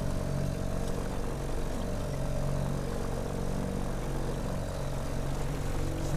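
Evinrude outboard motor running steadily at trolling speed, an even low drone that does not change pitch, over a hiss of wind and water.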